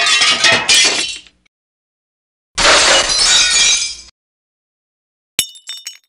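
Glass breaking, three times in turn: a shattering crash with scattering shards in the first second and a half, a second crash about two and a half seconds in lasting about a second and a half, then near the end a sharp clink that rings, followed by a few lighter clinks.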